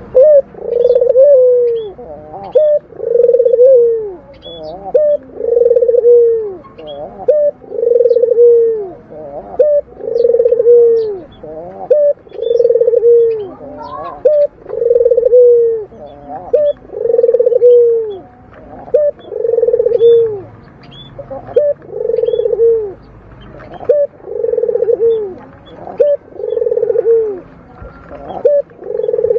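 A local puter dove (a domesticated turtle dove) cooing over and over in its low, purring 'snoring' coo. Each coo is held evenly for about a second and drops away at the end, and the coos come roughly one every two seconds. Faint high chirps of small birds sound between them.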